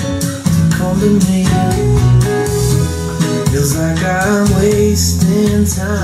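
Music: a pop-rock song with guitar, bass guitar and drums, playing between sung lines.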